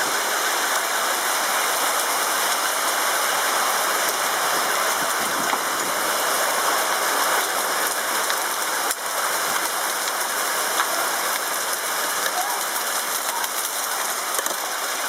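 Heavy rain pouring down in a storm, a steady, even hiss.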